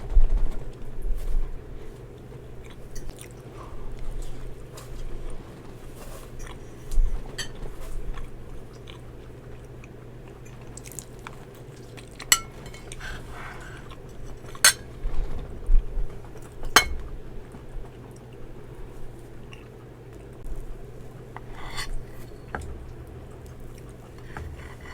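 Close-miked ASMR eating of cake: soft chewing and mouth sounds with scattered sharp clicks, loudest about halfway through and again two-thirds of the way through.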